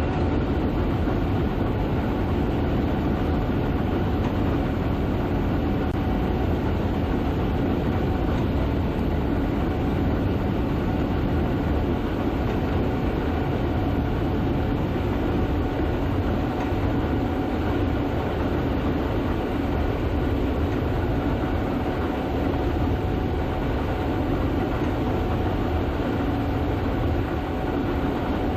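Gleaner S98 combine harvester running steadily while harvesting soybeans: a constant mechanical drone with a steady hum over it.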